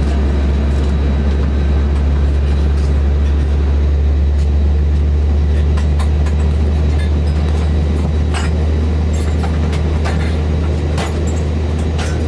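Steady low drone inside an Airbus A321 cabin, with scattered light clicks from around the cabin.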